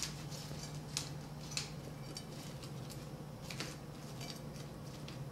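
A few faint, scattered clicks of a fork and fingers on dinner plates during a meal, over a steady low hum of room tone.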